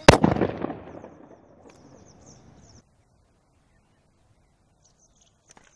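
A plastic bottle bursting under hydrogen pressure, built up from aluminium foil reacting with caustic soda and water: one loud bang right at the start, with a noisy tail that fades over about a second and a half. Birds chirp faintly afterwards.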